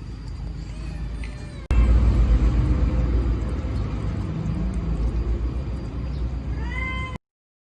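Rescued baby kitten meowing, with a clear high call near the end, over loud low rumbling noise.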